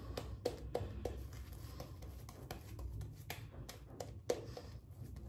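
Boar-bristle shaving brush working lather over the cheek and neck: irregular short scratchy brushing strokes.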